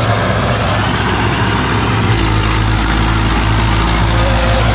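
Swaraj 843 XM tractor's three-cylinder diesel engine running steadily under load as it drags a leveller through deep paddy-field mud on cage wheels.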